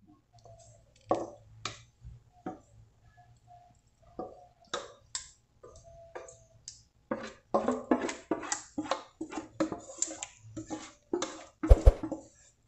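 Wooden spoon scraping and knocking against an aluminium saucepan as thick cooked custard cream is scraped out into a glass dish: a run of irregular clicks and scrapes, busier in the second half, with a couple of sharper knocks near the end.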